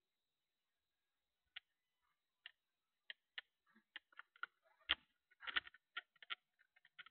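Faint, irregular clicks and taps that come closer together after about three seconds, with the loudest knocks around five seconds in.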